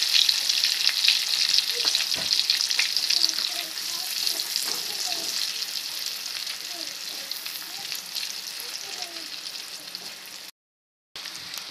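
Sliced garlic, shallots and dried shrimp sizzling in hot oil in a wok, stirred with a spatula. The sizzle is loudest at first and eases off over the following seconds, with a brief silent gap near the end.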